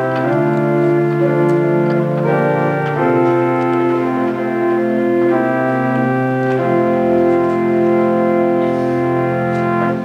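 Church organ playing the sustained chords of a hymn, the chords changing every second or two and ending at the close.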